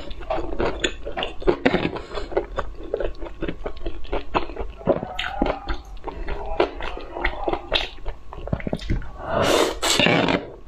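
Close-miked chewing and wet mouth smacks while eating noodles, then a long loud slurp as a big mouthful of noodles is sucked in near the end.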